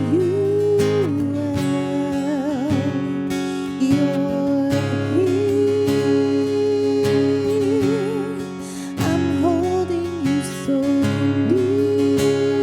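Music: strummed acoustic guitar accompanying a melody of held notes with vibrato.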